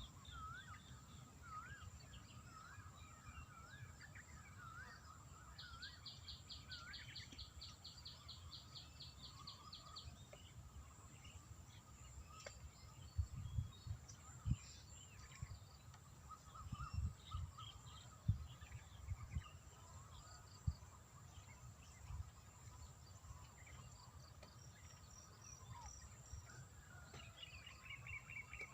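Quiet outdoor ambience with several birds calling: repeated short chirps and a fast trill of evenly spaced notes, over a steady high thin tone and a low rumble. A few short low thumps come in the middle.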